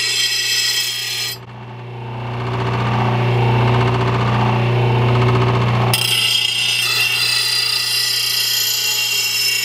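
Oregon bench blade grinder, a 1/3-horsepower motor spinning a grinding wheel, grinding the steel edge of a lawn mower blade with a harsh hissing grind. A little over a second in the blade comes off the wheel, leaving only the motor's steady hum. Grinding resumes about six seconds in.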